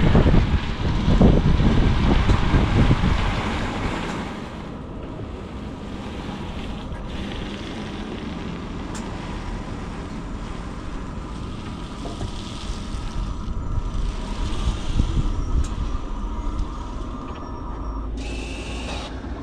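A car on the move: steady road and wind noise, louder for the first few seconds and then settling lower.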